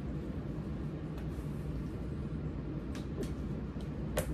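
Steady low room hum with a few faint clicks, and one sharp click near the end as a plastic water bottle is handled.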